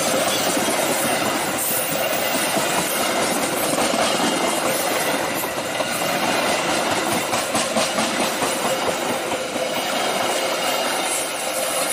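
Passenger train coaches rolling past close by: a loud, steady rumble and rattle of steel wheels on the rails, with intermittent clacks.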